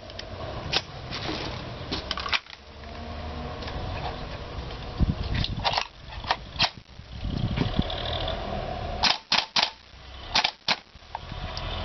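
Sharp plastic-and-metal clicks and clacks from a WE G36 gas-blowback airsoft replica being handled: BBs pressed one by one into its magazine, then the rifle's action worked. The loudest clacks come in two tight groups near the end.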